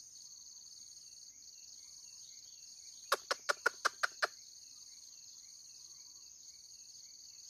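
Steady high-pitched insect chorus with faint bird chirps. About three seconds in comes a quick run of seven sharp, loud clicks lasting a little over a second.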